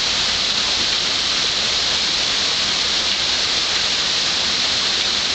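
Heavy rain falling and pattering on surfaces, a steady dense hiss.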